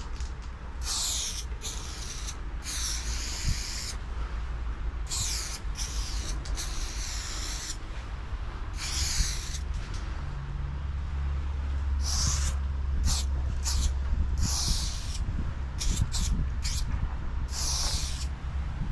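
Aerosol spray paint can hissing in repeated short bursts, each half a second to a second, as lines of paint are sprayed. A low steady rumble runs underneath.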